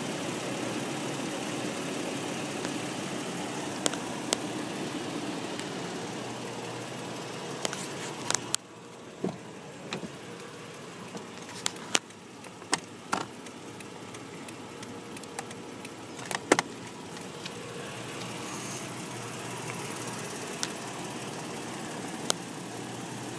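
A steady background hum that drops away about eight seconds in, followed by a scatter of sharp clicks and knocks from hands working switches in a pickup's cab. The hum then returns.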